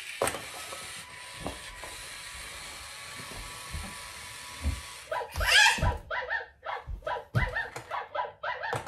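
Toy robot dog's speaker playing a run of short electronic sounds, starting about five seconds in, after a few soft knocks.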